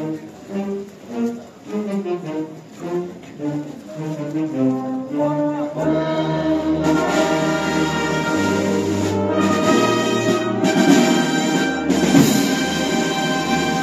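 Wind band (banda de música) playing a processional march: a softer passage of separate melodic notes, then about six seconds in the full band comes in with held brass chords and a bass line, and the music grows louder and fuller.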